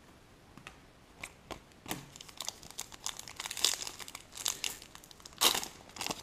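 Foil wrapper of a 2015 Select Soccer trading-card pack being torn open and crinkled. A few light clicks come first, then from about two seconds in the crinkling and tearing turn dense, with the loudest rip near the end.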